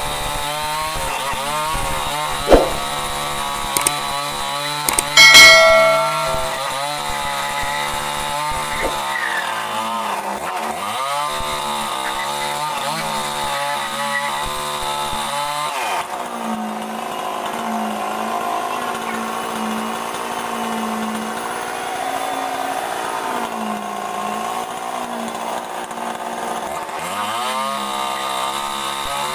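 Two-stroke gasoline chainsaw running steadily, finishing a lengthwise rip cut through a mahogany plank. A sharp knock comes about two seconds in, and a loud metallic clang rings out about five seconds in. The engine note changes partway through and settles into a wavering pitch for the second half.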